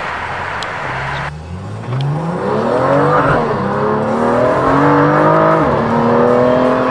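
BMW M2's turbocharged straight-six through a Fi Exhaust valvetronic catback, accelerating hard: after a second or so of rushing road noise, the engine pitch climbs steeply, drops at an upshift about three seconds in, climbs again, and drops at a second upshift near the end. Heard from inside the cabin.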